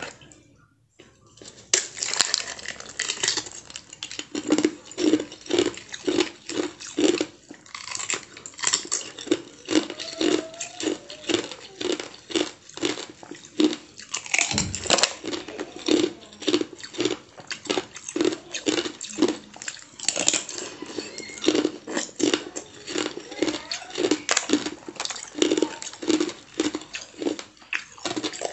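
Close-up crunching and chewing of molded ice with pomegranate seeds frozen inside, sharp cracks coming several times a second from about two seconds in, bite after bite.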